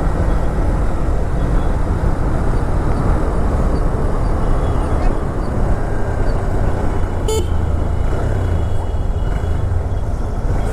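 Honda CB200X motorcycle ridden through city traffic: a steady engine and wind rumble, with one short vehicle-horn toot about seven seconds in.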